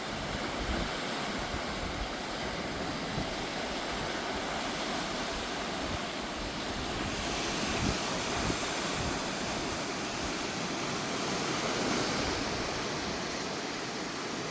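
Sea waves breaking and washing against rocky shore, a steady wash with a few low thumps, the biggest about eight seconds in. Wind buffets the microphone.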